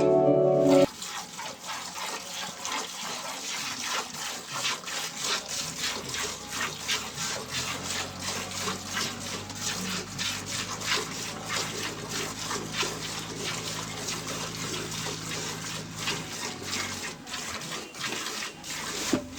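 Milk squirting into a pail as a cow is hand-milked: a steady rhythm of short, hissing jets from alternating pulls on the teats.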